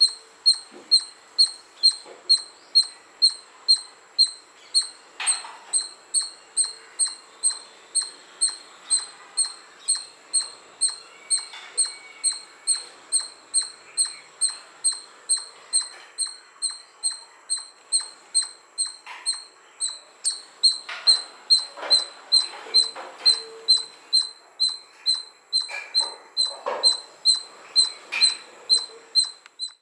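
Indian palm squirrel chirping: sharp, high-pitched chirps repeated steadily about two times a second, with faint scattered rustles and knocks underneath.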